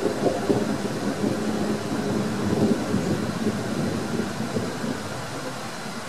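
Rolling rumble of thunder, strongest in the first few seconds and easing off toward the end.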